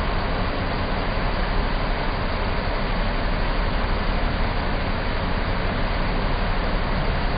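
Steady low rumble and hiss of noise on a ship's deck at sea, unchanging throughout.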